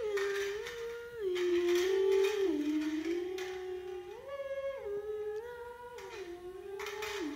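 A voice humming a slow, wordless melody in held notes that step up and down.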